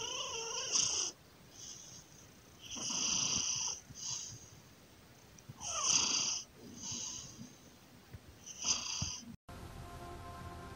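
A sleeping cat snoring, about six breaths in irregular succession, the loudest one about six seconds in. The snoring cuts off shortly before the end.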